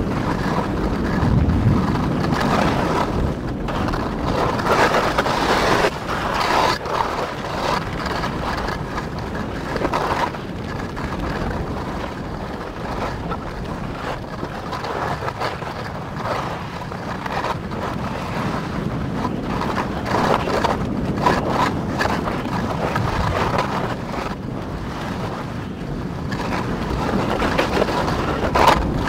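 Skis scraping and chattering over chopped, tracked-up snow at speed, rising in irregular surges, with wind rushing over the microphone.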